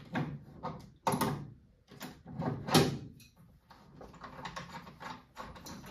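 Metal fittings and tools clicking and knocking as the gas line connection is undone from the venturi of a TRX combi boiler. There are two sharper knocks, about one second and nearly three seconds in, followed by lighter ticking and handling clicks.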